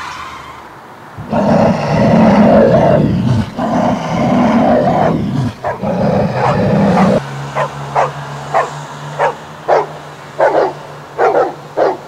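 An animal growling in long, deep, loud stretches, then a dog barking in short barks, one or two a second, from about seven seconds in, over a low steady hum.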